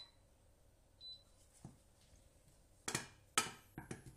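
A wooden spatula knocking and scraping against a stainless steel saucepan holding heating milk, water and butter, several sharp knocks in the last second and a half as stirring begins. Before that it is quiet apart from a short high beep about a second in.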